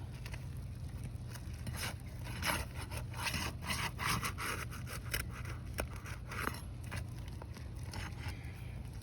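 Irregular scraping and rubbing of a tool working under asphalt roof shingles to unseal and loosen them, heaviest in the middle few seconds.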